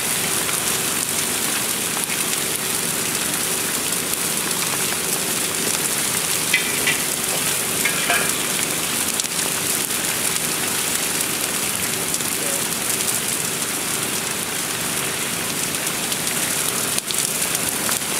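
Fire burning on two 275-gallon plastic IBC totes: a steady crackling hiss.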